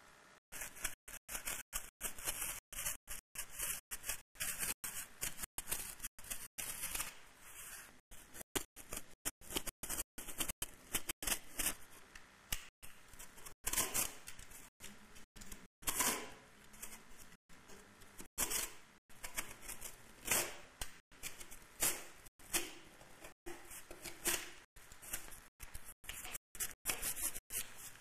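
Rapid, irregular scratchy strokes of hand work on a surface, several a second with brief gaps between them.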